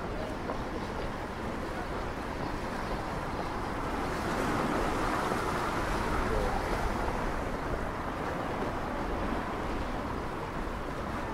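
Wind buffeting the microphone over the wash of the sea against the shore, with the wash swelling for a few seconds around the middle.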